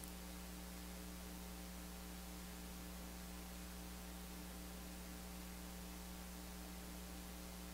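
Steady electrical mains hum with faint hiss, with nothing else over it.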